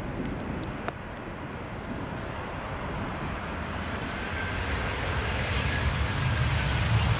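Jet airliner's engines growing steadily louder as the aircraft approaches, with a deepening rumble and a faint whine midway.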